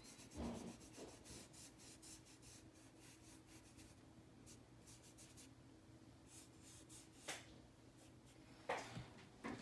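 Faint, quick rubbing strokes of a sponge applicator working PanPastel into drawing paper, with a few slightly louder strokes about half a second in and near the end.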